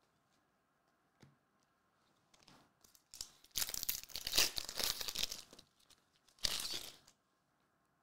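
Foil wrapper of a Select AFL Legacy trading-card pack being torn open and crinkled by hand: a long tearing, crinkling rip starting about three seconds in and lasting a couple of seconds, then a shorter crinkle near the end.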